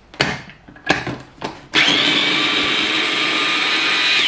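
Electric mini chopper: a few knocks as the motor top is set on the bowl, then about a second and a half in the motor runs steadily for about two and a half seconds and stops, cutting chunks of cold butter into ground almonds for pastry crumb.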